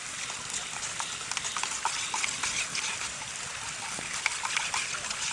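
A wood campfire crackling with irregular sharp clicks and pops, and a metal spoon stirring powdered milk in a metal camp mug, over a steady hiss.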